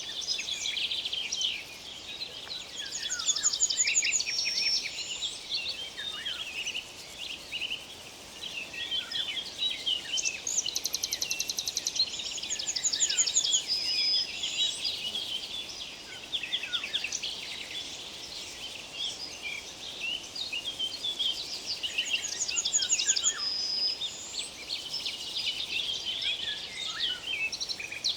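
Several songbirds singing at once, a dense chorus of chirps, rapid trills and short whistles, over a faint steady background noise.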